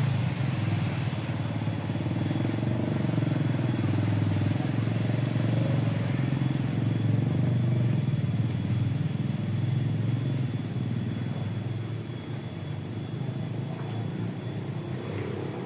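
A small engine running steadily with a low hum, growing quieter after about twelve seconds.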